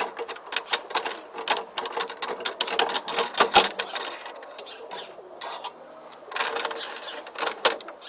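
Irregular metallic clicks and rattles of door locks and latches being worked by a parrot, coming in quick clusters with a short lull midway.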